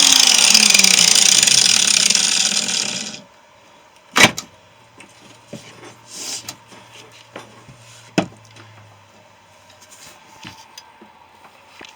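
A power tool cutting into a refrigerator compressor shell, its pitch sinking, stops abruptly about three seconds in. Then come two sharp knocks about four seconds apart, with light clanks of parts being handled.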